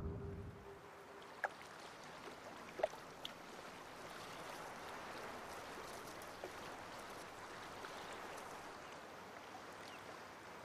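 Faint, steady trickle of shallow water over a tidal mudflat, with a few soft clicks.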